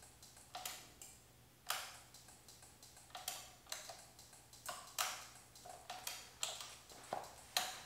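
Faint, sharp clicks at uneven intervals, roughly two a second, over very faint rapid ticking.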